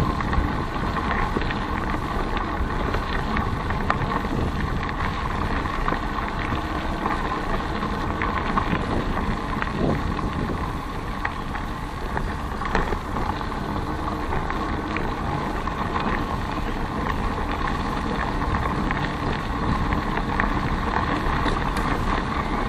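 Steady wind noise on the microphone mixed with the rumble of bicycle tyres rolling along an asphalt path, picked up by an action camera in an open housing.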